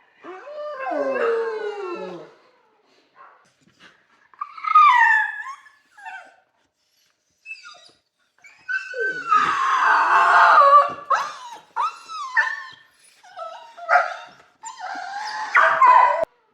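A dog shut in its crate howling and whining in a string of separate calls that bend up and down in pitch, the longest and loudest lasting about three seconds near the middle.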